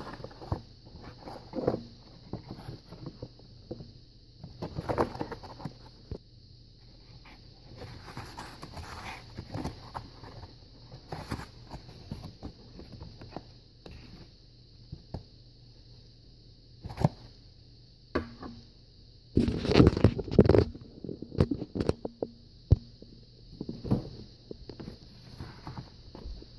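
Handling noises from a molded-pulp cardboard egg carton being opened, reached into and moved about: irregular scraping, rustling and light knocks, with a louder cluster of scrapes and knocks about twenty seconds in.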